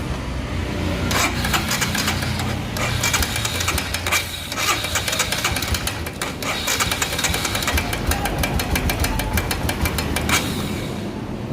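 Royal Enfield Himalayan 411 cc single-cylinder engine running with a rapid, busy "tik tik" ticking from the top end. The mechanic traces the noise to worn valves with play in the guides, fitted without lapping.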